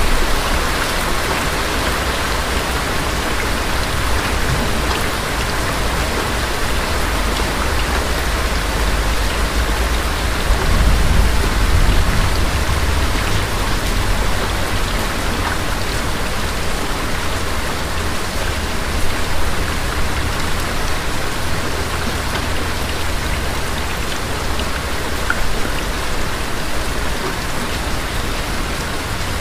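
Thunderstorm: steady rain falling, with a low rumble of thunder underneath that swells about ten seconds in.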